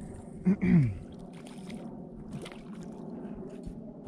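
A man's short falling exclamation about half a second in, then water lapping against a plastic sit-on-top kayak's hull, with a few light knocks on the kayak.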